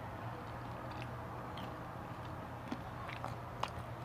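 Close-up chewing and small mouth clicks of a person eating, picked up by a clip-on lapel microphone, with a steady low hum underneath.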